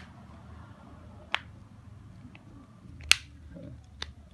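Sharp clicks of small plastic phone parts being fitted back together during reassembly: one about a second and a half in, the loudest about three seconds in, and a fainter one near the end.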